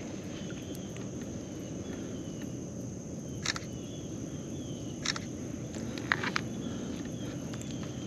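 Outdoor lake ambience: a steady high-pitched insect drone with faint short chirps repeating about once a second, broken by a few sharp knocks about halfway through and again near the two-thirds mark.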